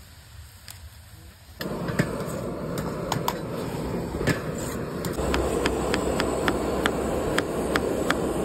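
A steady noise from a wok on a gas stove starts suddenly about one and a half seconds in, with scattered clinks of a steel ladle stirring chow mein noodles in the wok. From about five seconds in, a chef's knife chops carrots on a plastic cutting board, about two even knocks a second.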